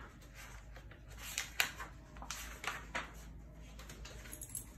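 Paper rustling as a softcover picture book is opened and its pages turned, with several short, sharp crackles in the middle.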